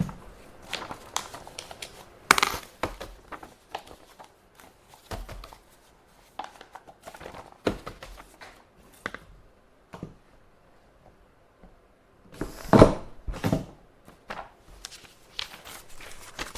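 Sheets of paper being handled: irregular rustling and crinkling with short clicks and taps, louder rustles about two seconds in and again near thirteen seconds.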